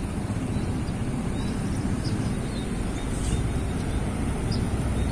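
Steady outdoor road ambience: a low, even rumble of distant traffic.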